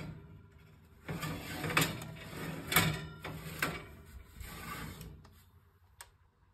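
Metal baking tray sliding onto a wire oven rack: scraping with a few sharp metal clanks, fading to a faint rustle and a last click near the end.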